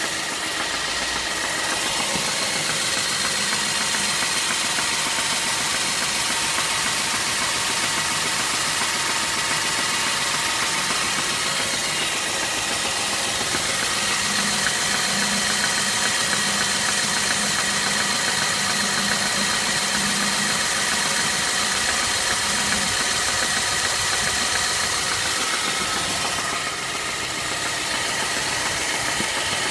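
BMW E90 318i's four-cylinder petrol engine running steadily at idle with a knock whose cause the owner cannot make out.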